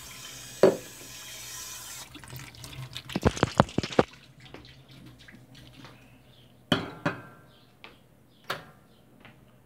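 Kitchen tap running into a stainless steel sink, shutting off about two seconds in. After it come a quick cluster of clicks and knocks and a few single knocks of things handled on the counter.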